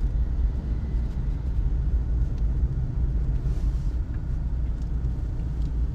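A steady low rumble, with a few faint ticks.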